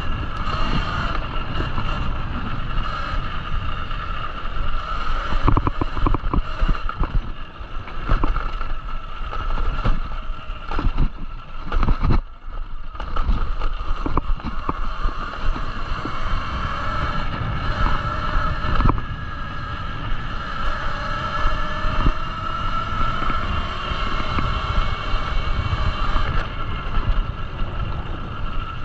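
Talaria Sting electric dirt bike riding a dirt trail: the electric motor and drivetrain whine, rising and falling with speed, over a rumble of tyres and suspension on the dirt with scattered knocks from bumps. The sound eases briefly a little under halfway through.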